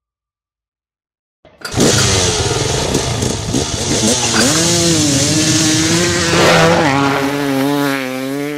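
Silence for about a second and a half, then a quad's engine cuts in loud, its pitch rising and falling with the throttle and warbling higher near the end.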